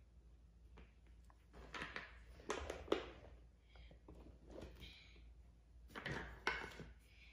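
Small plastic interlocking building pieces clicking and clattering as they are handled and stirred in a wooden bowl, in two short bursts of clatter, about two seconds in and again about six seconds in.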